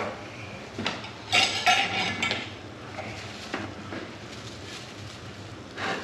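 Steel tire irons clinking and scraping against a dirt bike's spoked rim as the last stretch of tire bead is levered over: several sharp metallic clinks in the first half, then quieter handling knocks.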